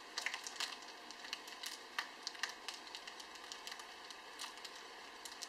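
Ramen noodles worked as a foley stand-in for a small crackling fire: a soft, steady fizz with many small, irregular crackles and pops.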